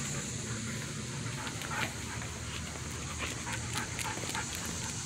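A dog panting as it walks on a leash, short breaths in quick succession over a steady background hiss.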